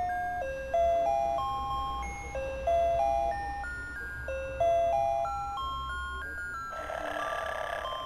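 Snoring plush teddy bear toy playing a tinny electronic tune, one clean beeping note at a time. A little before the end the tune gives way to its recorded snore, a rasping breath sound.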